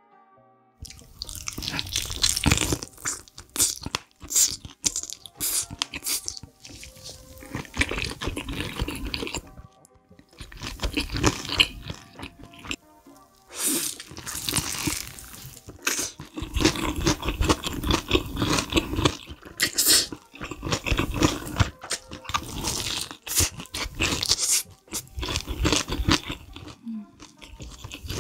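Close-miked biting and crunching into sauce-coated crispy fried chicken wings, with wet chewing between runs of crunches.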